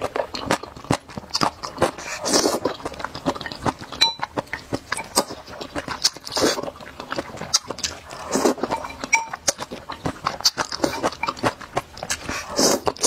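A person slurping sticky snail rice noodles in chilli oil: four long slurps a few seconds apart, with wet mouth clicks and chewing between.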